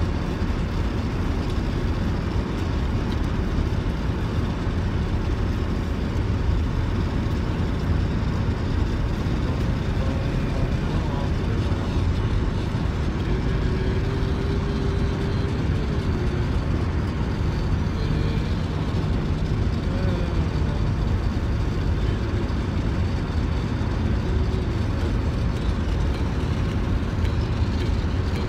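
Steady road and engine noise of a car being driven, heard from inside the cabin, mostly low in pitch and even throughout.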